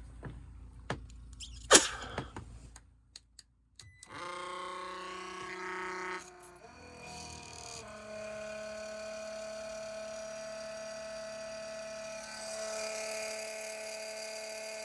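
A few clicks and knocks of handling, then a small battery-powered pump starts about four seconds in and runs with a steady motor whine, its pitch shifting once before settling, as it pumps condensate water out of the drain pan and flushes the drain line.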